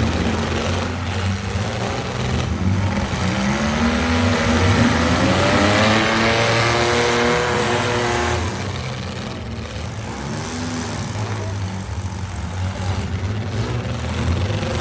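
Demolition derby car engines running hard, with one engine revving up and down for several seconds in the middle before easing off.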